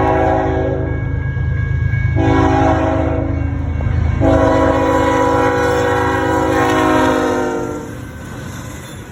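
Freight locomotive air horn blowing three blasts, one ending about a second in, a shorter one, then a long one that falls slightly in pitch near its end. A steady low rumble from the train runs underneath.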